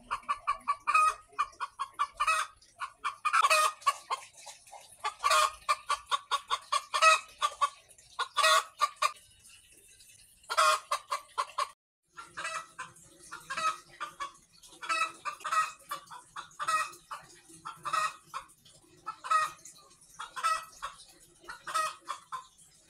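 Free-range native hen (ayam kampung) cackling over and over, in runs of short clucks and longer drawn-out notes, settling into about one call a second in the second half. The owner takes it as the hen reacting to one of her eggs being taken from her nest.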